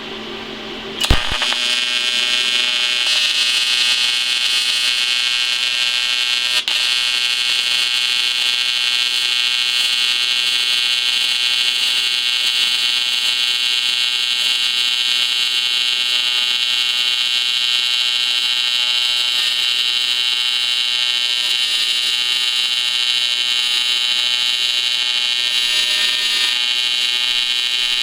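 AC TIG welding arc on 6061 aluminum, set at 136 amps and 120 hertz: it strikes with a sharp crack about a second in, then holds a loud, steady buzz as the joint is welded out.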